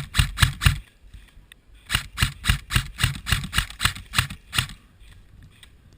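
Airsoft electric rifle firing a rapid string of semi-automatic shots, about four a second: a few in the first second, then after a pause about a dozen more, stopping near the five-second mark.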